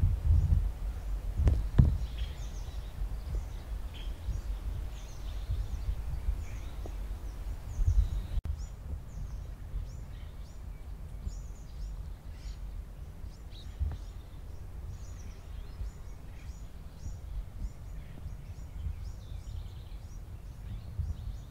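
Wind rumbling and buffeting on the microphone, heaviest in the first couple of seconds, with many short, high chirps of small birds throughout.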